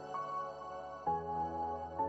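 Soft ambient background music: sustained synth chords that change about a second in.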